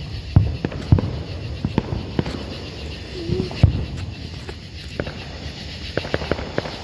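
Small consumer firework going off: a scatter of sharp pops and crackles at irregular intervals.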